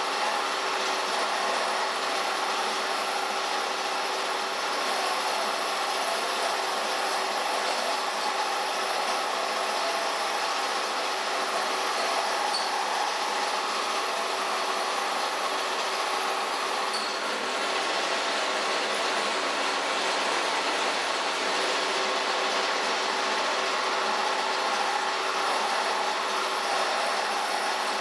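Milling machine spindle running while an end mill is plunge-fed by hand into a metal block: a steady machining noise with a thin, high whine that drops out for a few seconds after the middle and returns near the end.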